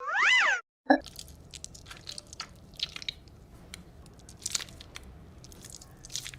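A short whistle-like tone that glides up and back down, then a sharp click and a run of soft, irregular crunches.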